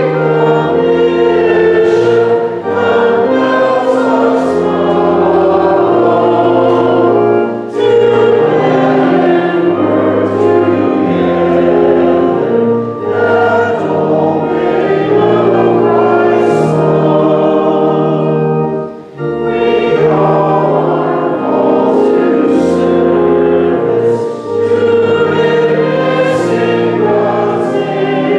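A church congregation singing a hymn together over held instrumental chords, with brief pauses between sung lines.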